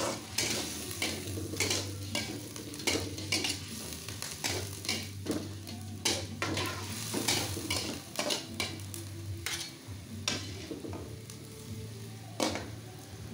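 Squid rings sizzling in a wok while a metal spatula and perforated skimmer scrape and clatter against the pan as the squid is stirred. Near the end the squid is scooped out with the skimmer. A steady low hum runs underneath.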